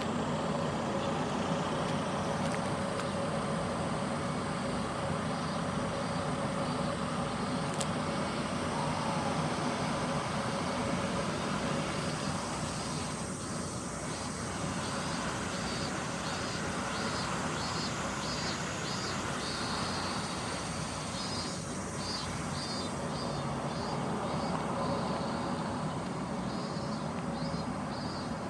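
Steady outdoor vehicle and traffic noise with a constant low hum. From about halfway through, a rhythmic high pulsing joins it.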